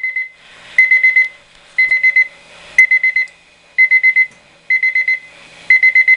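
Weather radio's electronic alert beeper sounding: short groups of four or five rapid high-pitched beeps, about one group a second.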